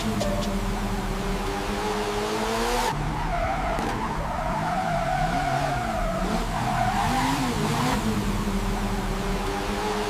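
Outro of a phonk track: the drums drop out, leaving sustained synth notes that bend and glide over a steady deep bass.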